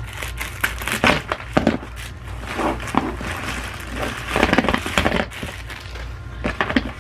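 Clear plastic bag crinkling and crackling as it is handled, opened and the chair's plastic caster wheels are pulled out of it, in irregular rustles and sharp crackles.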